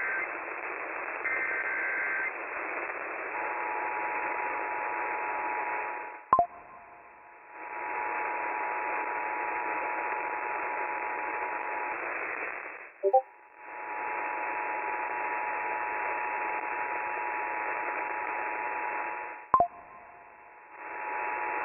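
Emergency Alert System signal over AM radio with a steady static hiss. A burst of the warbling SAME data header comes about a second in. From about three seconds on, the two-tone attention signal sounds steadily. Two loud clicks come about 6 and 19 seconds in, each followed by about a second where the tones and hiss drop out, and a shorter dropout comes around 13 seconds.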